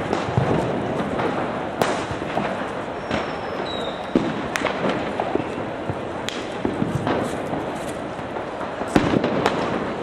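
Scattered firecrackers going off: several sharp single bangs a few seconds apart, two close together near the end, over a steady background din of city noise.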